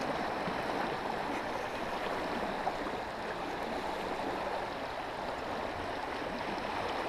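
Steady rush and swirl of river current, with a hooked dourado churning the surface close by.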